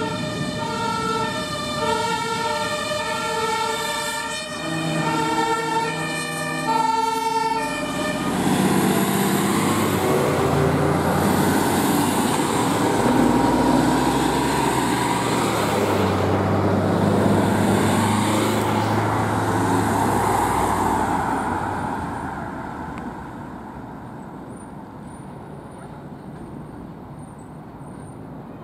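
German two-tone emergency-vehicle siren (Martinshorn) alternating between two pitches, then the loud engine and road noise of a heavy emergency vehicle driving past, fading away after about twenty seconds.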